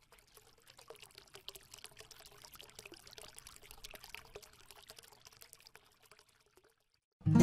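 Faint pouring, trickling water full of small crackles, fading out about a second before the end. Acoustic guitar strumming starts loudly just at the very end.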